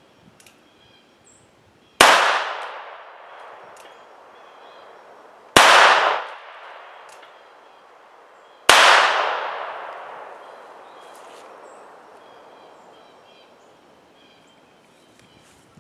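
Three shots from a North American Arms mini revolver in .22 Long Rifle, about two, five and a half and nine seconds in, each followed by an echo that takes two to three seconds to fade.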